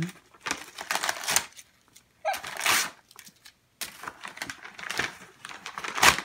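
Paper gift wrapping crinkling and tearing in several short bursts as it is pulled open by hand.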